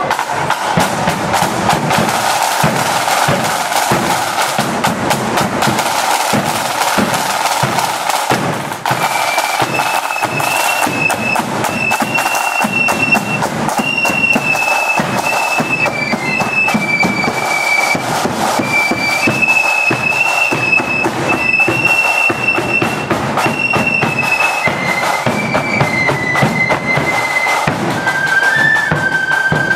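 Marching flute band playing: snare and bass drums beat a steady march rhythm, and about nine seconds in the flutes come in with a high melody over the drums.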